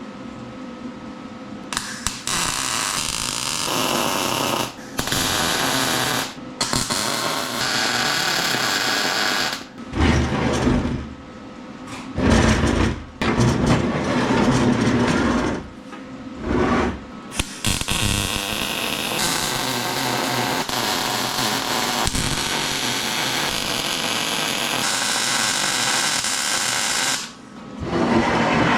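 Welding arc crackling in a series of welds a few seconds long with short breaks between them; the longest run, near the end, lasts about ten seconds.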